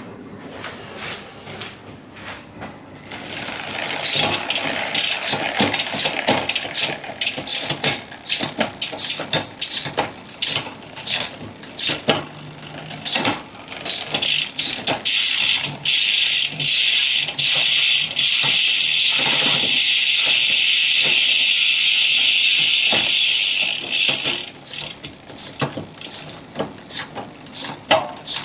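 Bicycle drivetrain with a WheelTop electronic derailleur shifting: repeated sharp clicks of the shifts and the chain moving across the cogs. From about four seconds in a steady high whir of the spinning drivetrain joins the clicks. It is loudest through the middle and eases back to separate clicks near the end.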